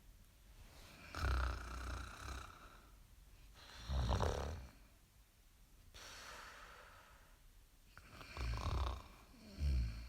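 Someone snoring in long, slow breaths: four loud snores with a low flutter, about a second in, at four seconds, and two close together near the end, with softer breathy exhales between them.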